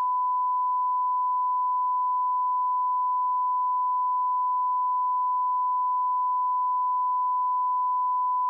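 Simulated SMPTE television test tone: a single steady sine-wave beep held unbroken at one pitch and one level.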